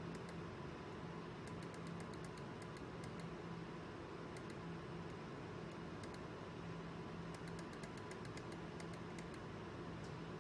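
Quick computer mouse and keyboard clicks: two long runs of about a dozen each, with a few single clicks between, over a steady low hum.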